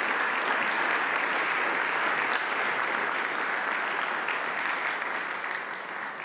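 Conference audience applauding at the end of a talk, a steady clapping that fades away near the end.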